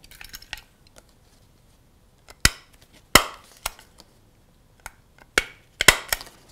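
Handheld desktop stapler stapling folded paper: a series of sharp clacks, about seven, starting about two and a half seconds in, after a little quiet paper handling.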